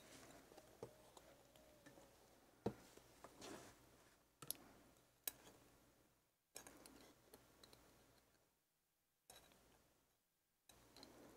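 Faint small clicks and ticks of steel tweezers against an American 1100 padlock's brass plug and pin stack as the pins are worked out, with a few sharper clicks and soft handling noise between them. It goes almost silent for a couple of seconds near the end.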